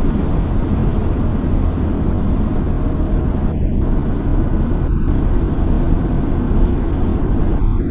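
Steady road and engine rumble of a car driving at highway speed, picked up by a dashcam microphone inside the cabin, heavy in the low end.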